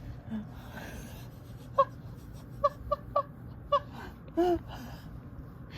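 A sleeping dog whimpering in its sleep. It gives about five short, high squeaks in quick succession, then one slightly longer, lower whimper.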